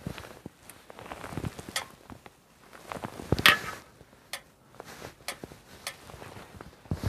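Handling noises from hands-on work: scattered sharp clicks and knocks, with one louder crunching scrape about three and a half seconds in.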